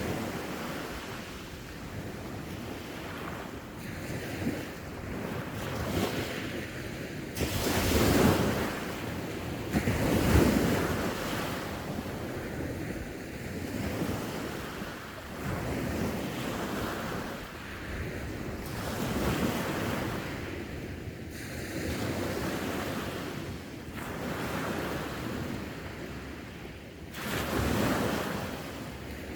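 Sea waves breaking in a slow rise and fall of surf, swelling every few seconds. The two biggest come about eight and ten seconds in, and another comes near the end.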